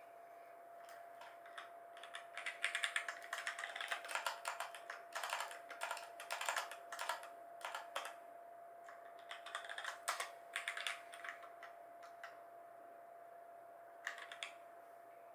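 Typing on a Razer BlackWidow Lite mechanical keyboard with Razer Orange switches: quick runs of keystrokes for about ten seconds, a pause, then a brief flurry near the end.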